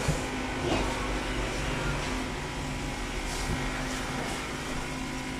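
Steady hum with a constant low tone and faint hiss, and a few faint clicks.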